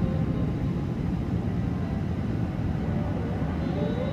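Steady cabin rumble of an Airbus A380 on final approach with flaps down, heard from a window seat over the wing. A faint rising whine comes in near the end.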